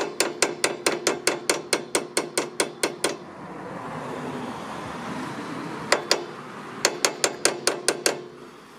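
Claw hammer tapping a bolt down through a motorcycle footpeg bracket to line up the peg, quick sharp taps about four a second. They stop about three seconds in, then a single tap and another short run of taps follow near the end.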